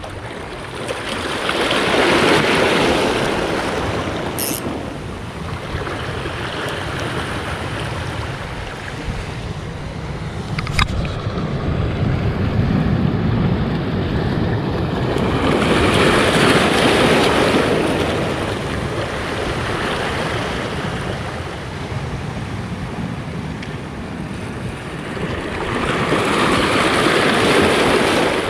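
Sea waves surging and washing against the rocks of a breakwater, swelling up three times, roughly every ten to twelve seconds. One sharp click about eleven seconds in.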